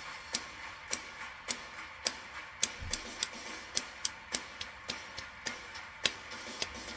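Sharp, regular clicks, a little under two a second, over a faint steady background.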